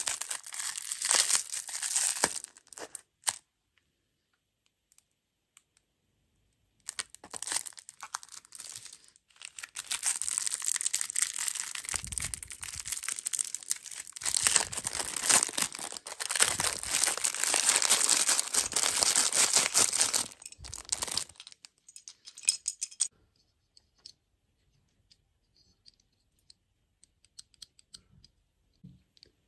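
Plastic food packaging crinkling and tearing as it is handled and opened. There is a short stretch at the start, then a long one with a few dull bumps, and only faint ticks after that.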